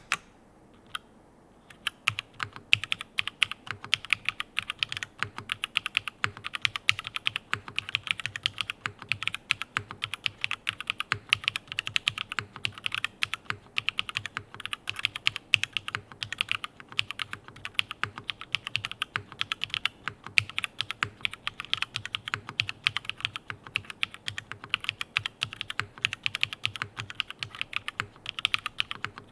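Typing on a custom mechanical keyboard with Cherry MX Blossom switches, GMK doubleshot ABS keycaps and a top-mounted aluminium plate. After a brief pause with a single keystroke, fast continuous typing with many clacks a second.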